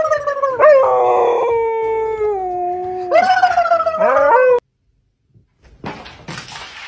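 A dog howling: several long drawn-out howls in a row, each swooping up in pitch at its start and then held or slowly falling, stopping abruptly about four and a half seconds in. A short stretch of noise follows near the end.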